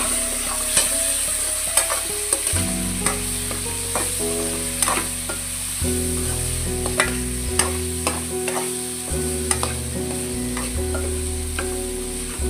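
Potatoes, tomato and spices sizzling in a metal kadai, with a steel spoon stirring them and clinking against the pan every second or so.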